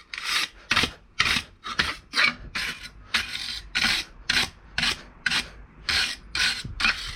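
Stiff-bristled blacksmith's block brush scrubbed back and forth over a piece of steel lawnmower blade, a rhythmic scratching of about two strokes a second: a brush test, cleaning the steel's surface.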